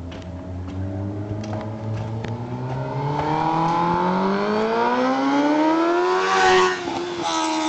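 2001 Suzuki GSX-R's inline-four through a shortened Yoshimura RS-3 exhaust, accelerating in first gear with the engine pitch climbing steadily as it approaches. Loudest about six and a half seconds in, then the note breaks off suddenly and falls in pitch as the bike goes past.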